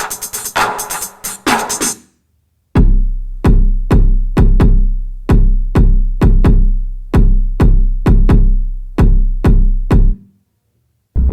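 Electronic music built on a drum machine: a busy beat for about two seconds, a brief drop-out, then heavy kick-drum hits with a deep bass note under each, about two a second. The music cuts out near the end, and a low throbbing synth comes in just before the close.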